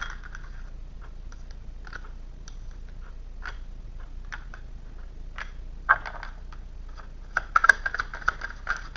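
A deck of tarot cards being shuffled by hand: scattered soft snaps and rustles, then a quick flurry of card clicks near the end.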